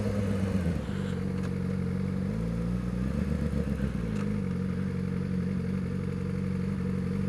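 2012 Yamaha R6's inline-four engine running steadily at low revs, its pitch dipping and rising briefly about two to four seconds in.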